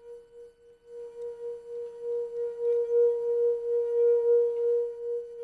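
Wine glass singing as a wet fingertip rubs around its rim: one steady pure tone of about 470 Hz, the glass's lowest resonance frequency. It grows louder over the first couple of seconds and wavers in loudness a few times a second.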